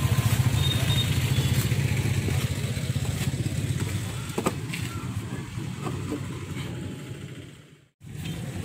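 A vehicle engine running with a low, rhythmic hum that fades away over several seconds and drops out briefly near the end. A few light metal clicks sound over it.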